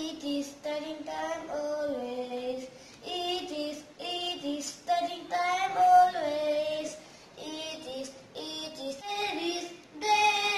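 A young boy singing a song in held, rising and falling notes, phrase after phrase.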